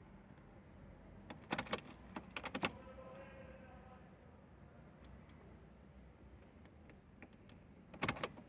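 Car keys jangling on their keyring in short bursts at the ignition of a 1999 Opel Vectra B: two clusters about a second apart, then another near the end. No engine cranks or starts, which fits the car's no-start fault.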